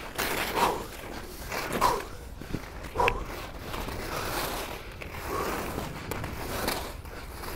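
Skis swishing and scraping through soft snow in a string of short turns over moguls, one swell of snow noise about every second and a bit.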